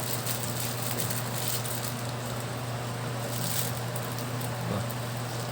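Steady low hum with an even hiss over it and a few faint small clicks.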